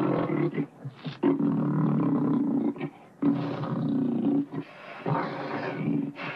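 Cartoon tiger Shere Khan roaring in about four long bursts, with short breaks between them.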